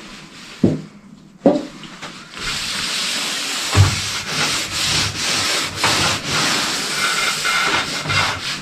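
Two sharp knocks, then from about two seconds in a steady back-and-forth rubbing over a car hood's body-filler surface.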